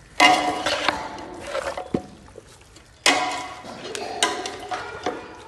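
A steel spoon clanking and scraping against a large aluminium pot while raw meat and vegetables are mixed in it: two loud ringing clanks about three seconds apart, with lighter clinks between.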